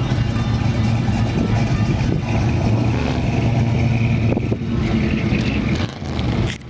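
Hot rod's engine running low and steady as the car drives slowly past, with a brief dip in level near the end.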